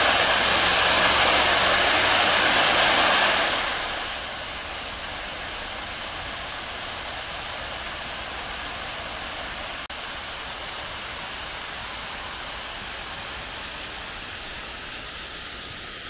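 Small waterfall cascading down a stacked-stone wall, a steady rush of falling water. It is loud for the first three or four seconds, then settles to a softer, even rush.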